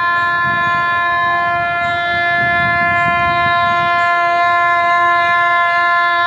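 Train horn sounding one long, steady blast as the train approaches, growing slightly louder.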